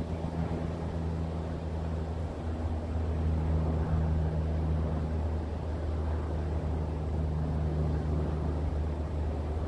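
A steady low motor drone with a hiss over it, holding an even pitch.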